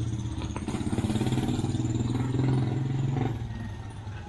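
A motorcycle engine running close by with a fast, even putter, fading away a little over three seconds in.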